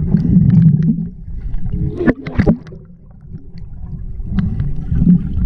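Muffled underwater sound picked up by a camera submerged in a swimming pool: a low rumble of moving water with scattered clicks, and a short burst of bubbling about two seconds in. It dips briefly, then builds again toward the end.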